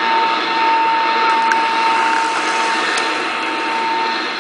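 A shortwave broadcast station's steady single tone, sent in place of programming at the end of its transmission, heard through the static and hiss of an Icom IC-R71A communications receiver. The tone cuts out near the end.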